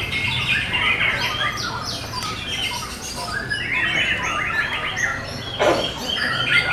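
White-rumped shamas singing in competition: a dense, continuous run of quick, varied whistled and chattering phrases from several caged birds, with one louder sharp note near the end.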